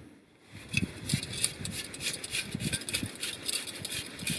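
Handling noise: a run of small, irregular clicks and light knocks as small camping gear is picked up and handled.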